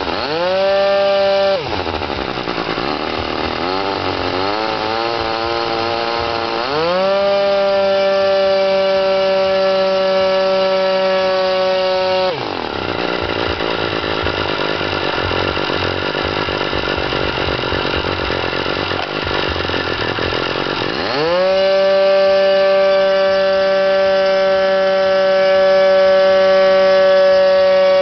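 O.S. Graupner Wankel rotary model-aircraft engine turning a propeller, running at a steady high-pitched whine that is throttled back twice to a lower, rougher speed and opened up again each time, the pitch climbing as it revs.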